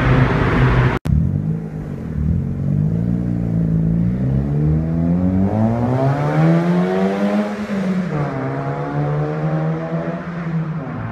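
Opel Corsa C GSi's 1.8 16v four-cylinder engine being driven hard. After a sudden break about a second in, the engine note climbs steadily for several seconds, drops sharply as with a gear change, then climbs a little and holds.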